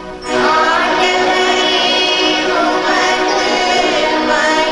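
Liturgical singing with accompaniment: a short sung Mass response to the Gospel announcement, its long notes sliding in pitch. It starts a moment in.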